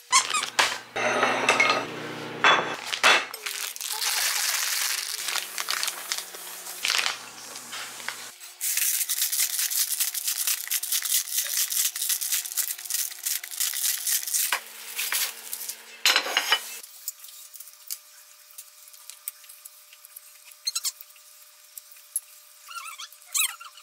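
Plates and cutlery clinking and scraping as a meal is handled at a table, in several dense stretches, then only a few faint clicks near the end.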